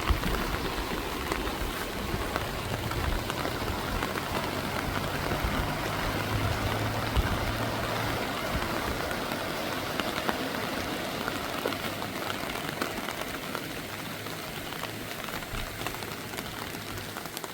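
Steady hiss of rain and rushing floodwater, with a low hum through the first half that fades out about halfway through.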